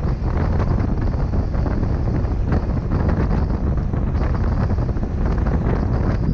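Strong wind buffeting the microphone: a loud, steady, low rumble with rapid flutters and no clear pitch.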